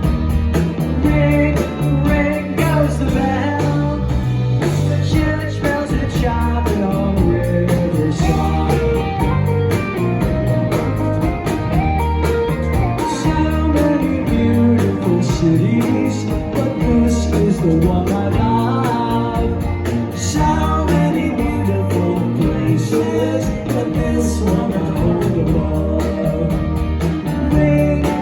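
Rock band playing live: electric guitars and bass over a steady drum beat, with singing over the music.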